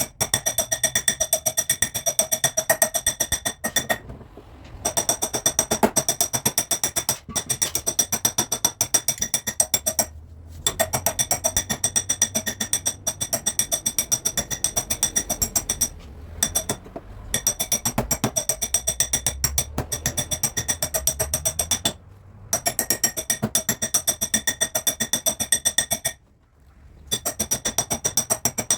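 Hammer rapidly tapping a car body panel during dent smoothing, about six quick strikes a second with a high metallic ring, in runs of several seconds broken by brief pauses.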